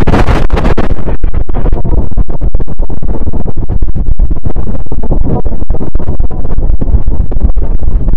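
Synthesized 'planet sound': a loud, distorted rumble of noise broken by many brief dropouts. Its high hiss thins out about a second in.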